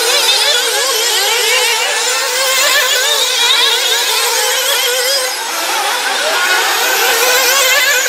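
Several small two-stroke nitro glow engines of 1/8-scale RC buggies racing, high-pitched and wavering quickly up and down in pitch as they rev and back off through the corners.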